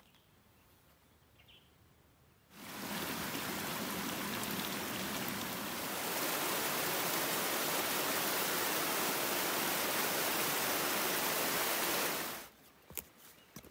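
Small creek running fast over rocks as white water: a steady rush that comes in abruptly about two and a half seconds in, grows a little louder about halfway, and cuts off shortly before the end.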